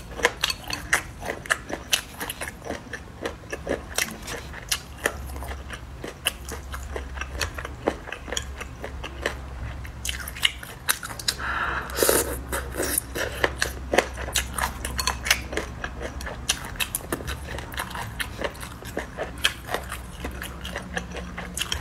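Close-miked chewing and biting of boneless chicken feet in chili sauce: a steady run of wet, crunchy bites and mouth clicks, with a louder stretch of crunching about twelve seconds in.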